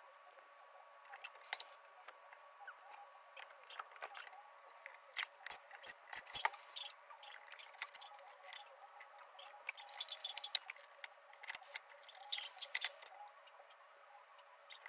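Scattered light clicks, taps and small rattles of a subwoofer's panels, wires and amplifier plate being handled and pulled out of its cabinet during disassembly.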